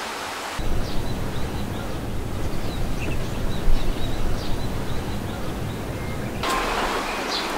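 Wind buffeting a digital camera's built-in microphone: a rough, uneven rumble that starts suddenly about half a second in and stops near the end. Small birds chirp faintly throughout.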